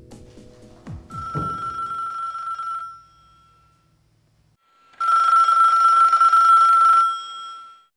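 Telephone ringing twice, each ring about two seconds long with a fast trill, and a pause of about two seconds between them.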